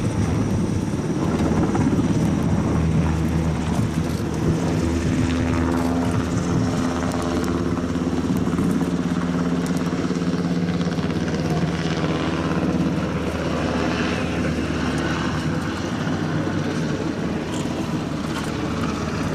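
Steady drone of a running engine, with a few faint clicks near the end.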